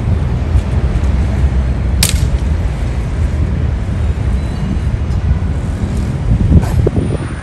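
Steady low rumble of road traffic and a running vehicle, with a sharp click about two seconds in and another near the end.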